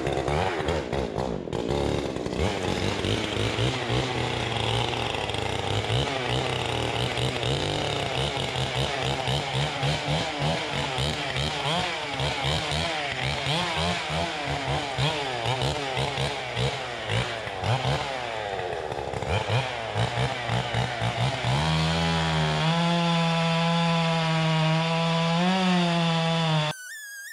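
Gas chainsaw running, its engine speed wavering up and down, then held steadier at a higher pitch for the last few seconds before the sound drops away suddenly.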